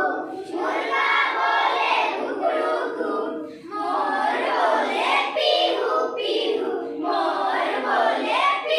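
A group of children singing together in unison, in high young voices, with short breaks between phrases.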